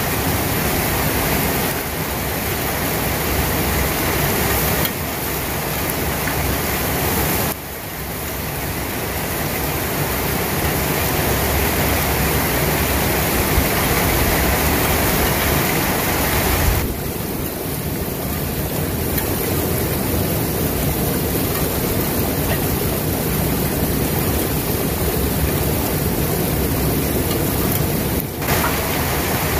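Rain falling steadily, a dense even hiss that changes abruptly in tone and level a few times.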